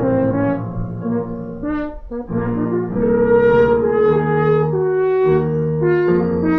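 French horn playing a slow melody, with lower held notes sounding beneath it. There is a short break, like a breath, about two seconds in.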